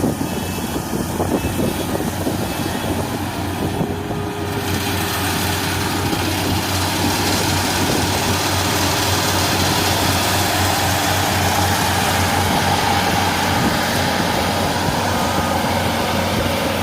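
Combine harvester running steadily with a constant low engine hum and machine noise, growing a little louder about five seconds in.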